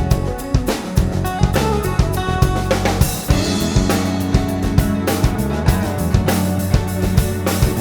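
Background music: a pop song's instrumental section with a steady drum-kit beat of bass drum and snare over bass and keyboard parts.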